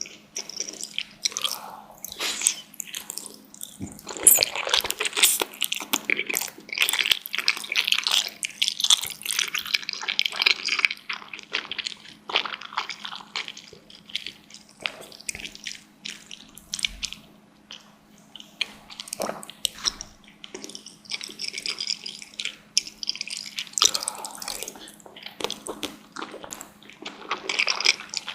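Close-miked eating of dumplings: wet biting, chewing and smacking mouth sounds in irregular clusters, heaviest in two stretches. A faint steady hum runs underneath.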